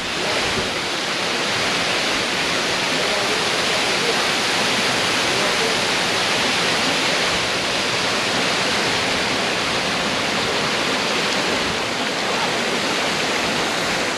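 Ninety-foot waterfall pouring steadily, an even rushing hiss of falling water.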